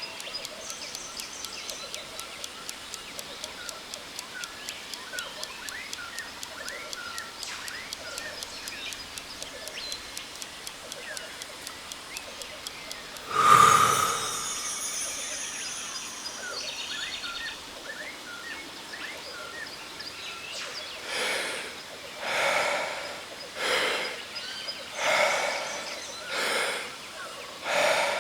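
Jungle waterfall ambience with birds chirping and a fast, even ticking. About halfway through, a single chime rings out and fades: the signal that the breath hold is over. From about 21 s, deep, forceful in-and-out breaths follow, about one every 1.3 seconds: the power breaths that open the next Wim Hof round.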